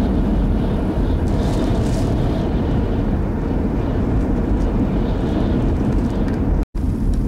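Dust-storm wind buffeting the car, a loud steady rumble that briefly cuts out about six and a half seconds in.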